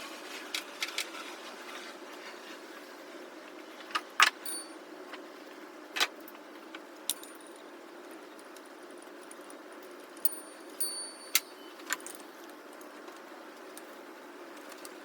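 Metal hand tools and parts clinking during work on a car engine: scattered sharp clinks and taps, some with a short metallic ring, the loudest about four seconds in. A steady low hum runs underneath.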